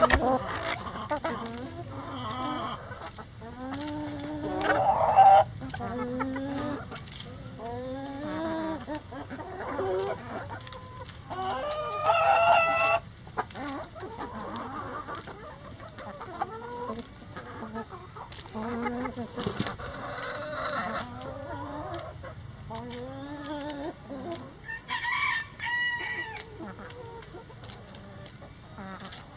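Backyard chicken flock, hens with roosters among them, clucking and calling without pause in short calls that rise and fall in pitch. Several calls stand out louder: the loudest comes about five seconds in, and longer, higher calls come near the middle and again near the end.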